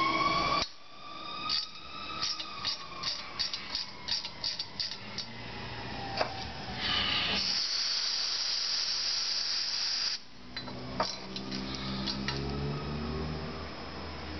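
A run of light metallic clicks as a brake-disc bolt is worked with a hand tool. Then an aerosol can of freeze spray hisses steadily for about three seconds, chilling the heated, Loctite-locked bolt so it shrinks and comes loose.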